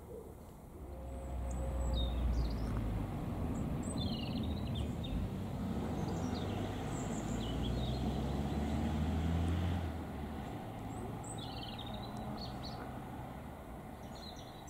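A low rumble swells about a second in and eases off near ten seconds. Small birds chirp faintly and high over it now and then.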